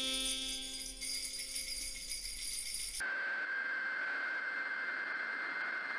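High jingling for about three seconds. Then it switches abruptly to a steady hiss of TV static, which cuts off dead at the end.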